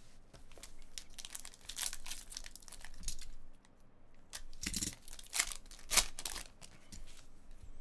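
A Panini Select basketball card pack's wrapper being torn open and crinkled by hand, with irregular crackles that come thickest about five seconds in.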